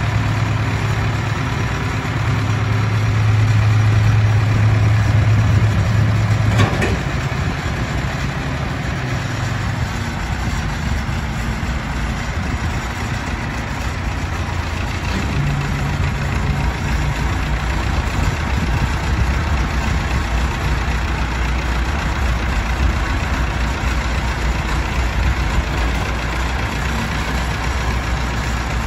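Allis-Chalmers 175 tractor engine running steadily while the front loader lowers and then raises its bucket. The engine note drops with a click about seven seconds in and rises again about halfway through.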